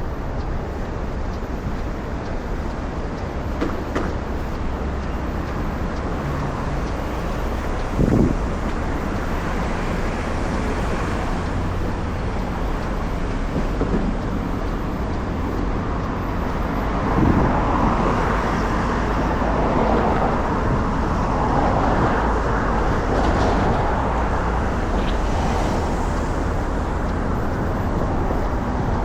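City street traffic: a steady rumble of passing road vehicles, with a short thump about eight seconds in and another about seventeen seconds in, after which the traffic noise grows louder for a while.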